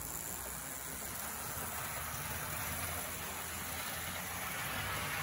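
HO-scale Bachmann GP18 model diesel locomotive with a Mehano all-wheel-drive mechanism running on the track: a steady whir of its small motor and gears with the wheels rolling on the rails, growing slightly louder as it gathers speed.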